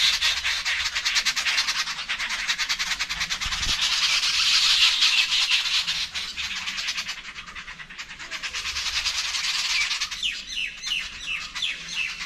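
Jungle babblers calling in harsh, rapid, rasping chatter that swells and fades in waves. Near the end a run of short falling notes cuts through.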